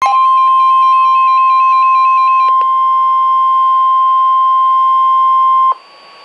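NOAA Weather Radio 1050 Hz warning alarm tone: one long, loud, steady beep that cuts off suddenly near the end, the signal that a warning broadcast follows. For the first two and a half seconds a second tone pattern hops rapidly back and forth between high and low pitches over it.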